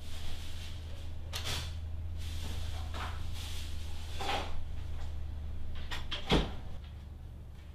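Steady low hum of room tone, with several short rustling or knocking noises and a sharp thump about six seconds in, after which the hum drops away.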